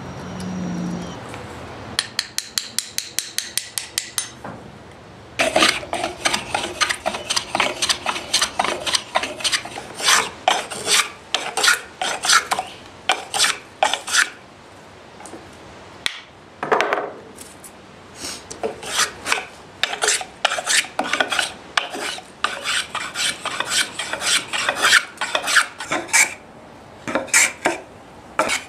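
Wooden sheath block being shaped with a hand rasp, scraped in repeated back-and-forth strokes. A quick run of short strokes comes first, then steadier strokes of about two to three a second with a short pause about halfway.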